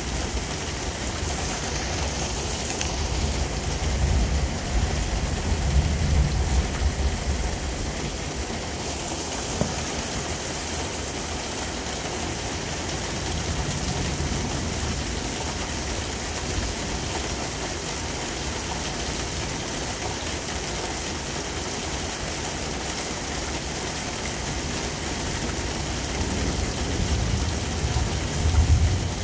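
Heavy thunderstorm rain falling steadily, a constant hiss. Low rumbles swell about four to seven seconds in and again near the end.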